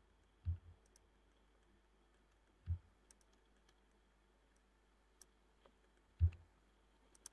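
Faint clicks of a computer mouse: three dull clicks a couple of seconds apart, the last the loudest, with a few tiny ticks between them.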